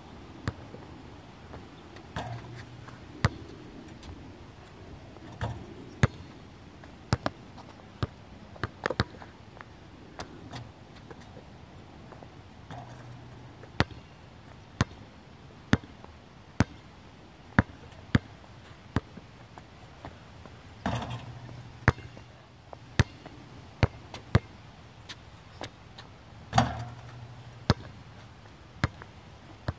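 A basketball bouncing on an outdoor court, a sharp knock about once a second as it is dribbled, with two louder hits that ring briefly partway through.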